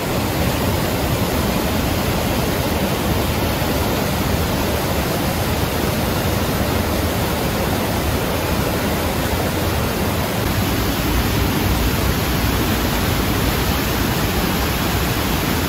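River water pouring over a curved dam spillway and crashing through boulder rapids below it: a steady, loud rush of whitewater.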